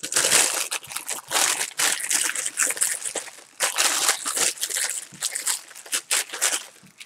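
Clear plastic bag crinkling and crackling as hands squeeze and turn it, densest in the first three and a half seconds and then in shorter, broken bursts.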